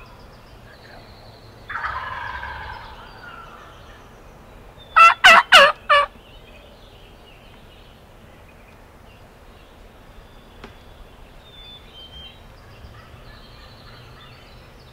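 A wild turkey tom gobbles about two seconds in, a rattling call that trails off. About five seconds in come four loud, sharp calls in quick succession.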